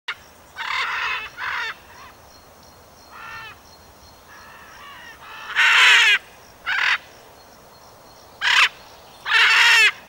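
Blue-and-gold macaw squawking: about eight harsh calls at uneven intervals, some short and some longer, the loudest about six seconds in and the last near the end.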